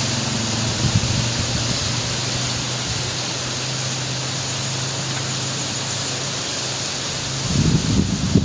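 Breeze rustling through coconut palm fronds, a steady hiss. A low steady hum sits under it and fades out near the end, where gusts buffet the microphone.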